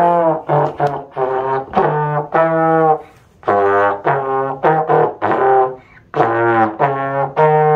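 Trombone playing a series of separate notes, grouped in three short phrases with brief pauses between them.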